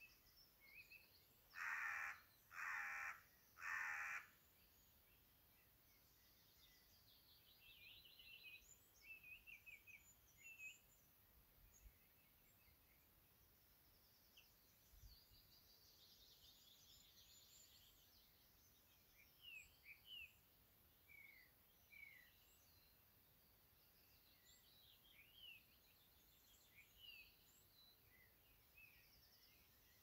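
Three harsh, cawing bird calls about a second apart near the start, over scattered short, high chirps of small birds.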